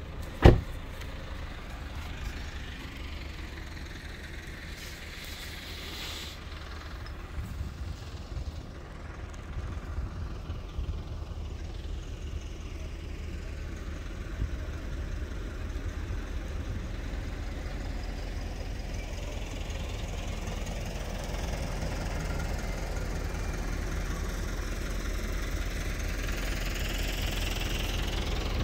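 Car engine and road noise heard from inside the moving car: a steady low rumble that grows slowly louder toward the end. A single sharp knock sounds about half a second in.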